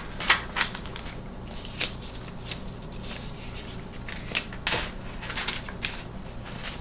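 Paper pages of a handmade altered-book junk journal being turned by hand: a run of quick rustles and swishes, several page flips one after another.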